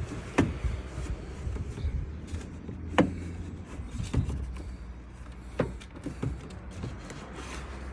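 Door window glass being worked down into the door of a 2015 Ford Ranger: several sharp knocks and clunks of the glass against the door's metal, about three loud ones a couple of seconds apart, over a steady low rumble.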